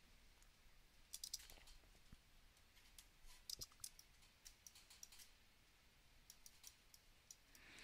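Faint, scattered clicks from a computer mouse and keyboard in use, some in quick little clusters, over near-silent room tone.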